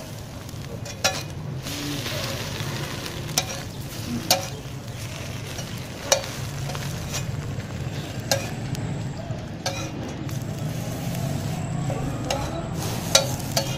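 Metal spatula clacking and scraping on a flat steel griddle, about seven sharp strikes spread over the stretch, over a steady sizzle of an egg frying on the hot plate.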